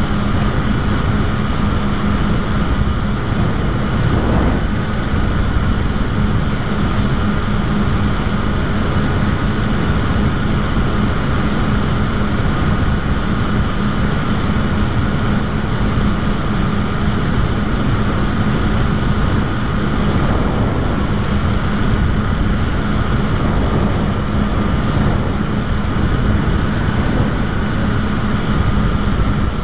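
Electric motor and propeller of an FPV model plane running steadily in cruise, heard from the onboard camera with a loud rush of wind over the microphone. A thin, steady high whine runs over it.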